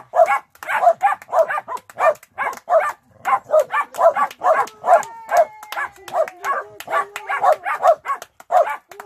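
A pack of Hungarian Puli dogs barking continuously and overlapping, about two to three barks a second, mixed with people clapping their hands. Around the middle one dog holds a longer, steadier note among the barks.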